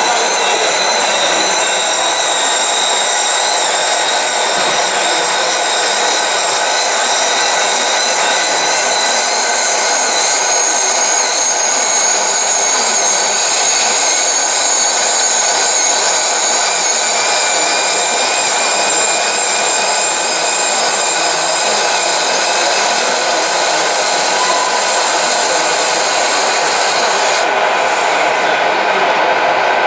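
Small electric hydraulic pump of a 1/14-scale radio-controlled tipper truck running steadily with a high whine as the ram lifts the tipper trailer's body. Near the end there is a brief brighter hiss.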